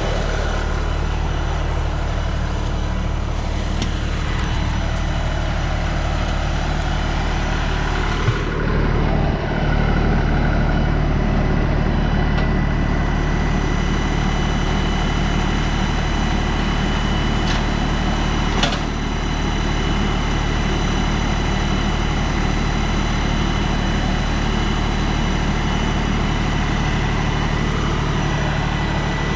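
42 hp LS compact tractor's diesel engine idling steadily, with two brief knocks, one about eight seconds in and one near nineteen seconds.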